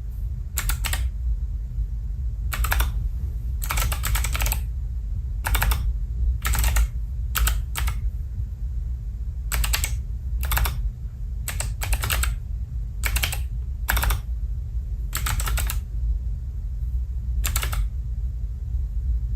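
Keystrokes on an Alpha28 28-key keypad: irregular clicks, sometimes single and sometimes in quick runs of several, over a steady low hum.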